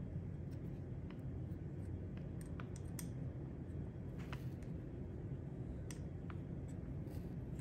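Light, irregular clicks and ticks of a small hex key and screws being started into the aluminium frame of a Planet Eclipse 170R paintball marker, over a low steady hum.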